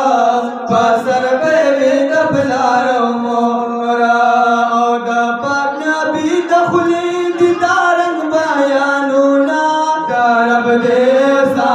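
Male voices singing a Pashto naat without instruments, in long drawn-out, ornamented notes that glide between pitches.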